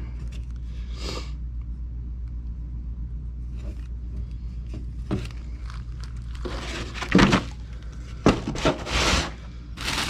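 Rustling and scraping of packaging and parts being handled during unboxing, in a few short spells, the loudest near the end, over a steady low hum.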